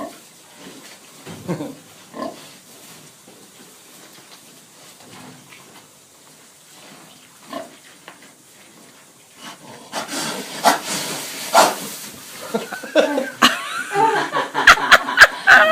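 Pigs in a pen giving scattered short grunts. About ten seconds in, the sound gets much louder: scuffling and knocks from the piglets moving about, with high squeals over it.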